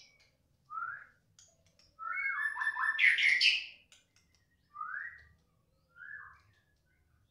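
White-rumped shama calling: short, rising whistled notes, with a louder burst of fuller, higher song about two seconds in that lasts under two seconds.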